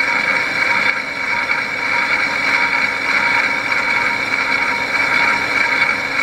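Metal lathe running steadily in low gear at 270 RPM while its tool takes a light final facing cut on a large cast housing: an even machine noise with a constant high whine.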